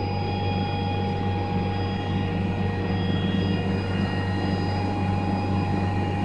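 Atlas Copco oil-free rotary screw air compressor running steadily: a constant low hum with a steady high whine over it.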